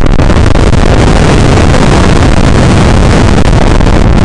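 Strong wind buffeting the microphone: a loud, steady rush of noise with no let-up.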